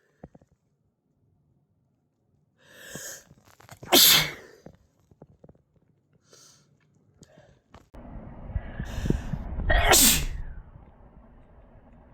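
Two human sneezes, about four and about ten seconds in, each following a short breathy inhale. The second is heard over a low, steady background rumble that starts suddenly just before it.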